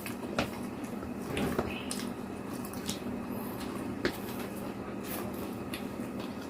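Wet mukbang eating sounds, scattered squishy chewing and mouth clicks, from someone eating fried eggplant with egg. A faint steady hum runs underneath.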